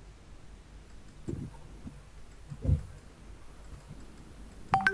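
Faint computer mouse clicks over quiet room tone, with two soft low thumps and a sharper click near the end.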